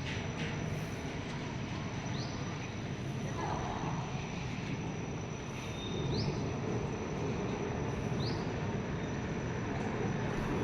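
Steady rumble of BAE Hawk jet trainers of an aerobatic display team flying past, growing a little louder about six seconds in.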